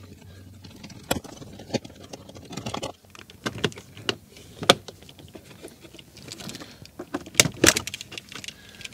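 Irregular clicks, taps and light rattles of a 7 mm socket driver working the glove box screws and knocking against the plastic dashboard trim. The sharpest knocks come about a second in, near the middle, and in a quick cluster near the end.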